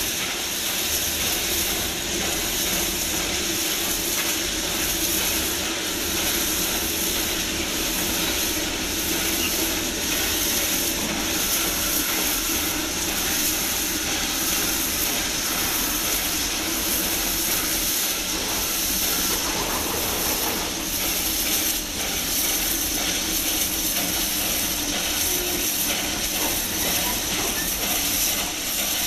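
Small steam tank locomotive hauling loaded sugar-cane wagons past, with steam hissing steadily over the sound of the train on the move.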